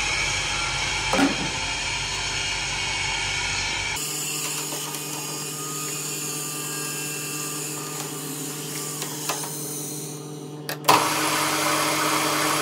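Small metal lathe running with a steady motor hum. Near the end a sharp click is followed by a louder, fuller running noise as the chuck spins.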